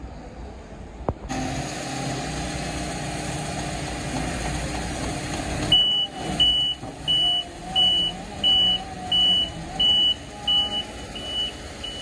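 Telehandler's diesel engine running, and from about six seconds in its reversing alarm beeping steadily, about twice a second, one high tone per beep.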